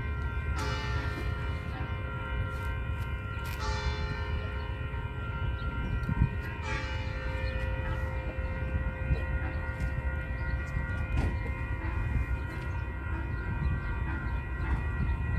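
Railroad grade-crossing warning bells ringing steadily, several overlapping ringing tones with a few sharper strikes in the first seven seconds, over a low rumble.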